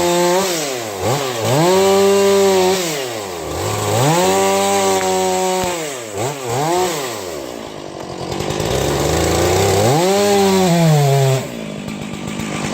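Chainsaw revved up and down about five times while it skims the thick bark of a Douglas fir to line up the felling cuts, its pitch rising, holding and falling with each pass. Near the end it drops to idle.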